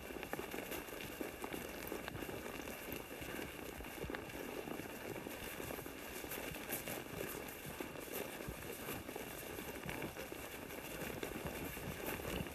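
Horses walking through meadow grass: soft, irregular hoof falls and rustling over a steady, even noise.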